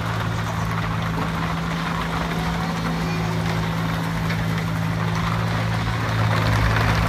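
Hitachi mini excavator's diesel engine running with a steady hum, getting louder near the end.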